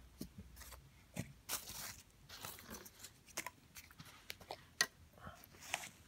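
Hard plastic clicking and rustling as a battery pack is slid onto a Parrot Bebop 2 drone, with a sharper click about five seconds in.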